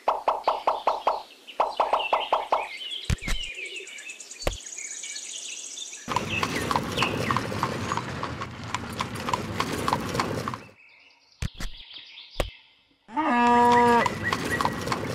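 Horse hooves clip-clopping in a quick even rhythm in two short runs, over high bird chirps. Then comes a dense stretch of chirping and rustling noise, and near the end a loud drawn-out animal call.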